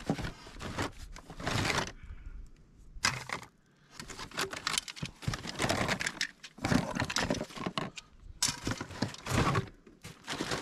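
White PVC drain pipe pieces and fittings clattering and knocking together as a hand rummages through a cardboard box full of them, in irregular bursts with short pauses.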